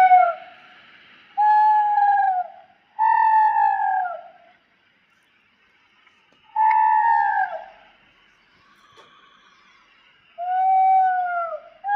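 Baby spinosaurus sound effect: short, high hooting calls, each about a second long, holding one pitch and then dropping at the end. They repeat four times with pauses of one to three seconds between.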